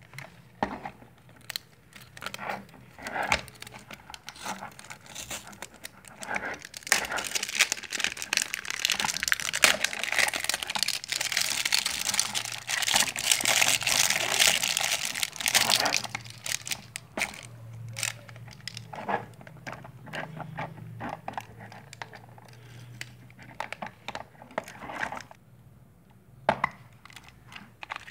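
Clear plastic wrapper crinkling and tearing as it is pulled off a plastic toy truck, loudest for several seconds in the middle. Scattered clicks and knocks of hard plastic being handled come before and after.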